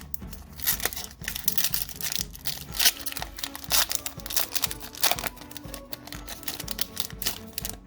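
Foil Pokémon booster pack wrapper crinkling and tearing as it is opened, in a run of sharp crackles, over background music.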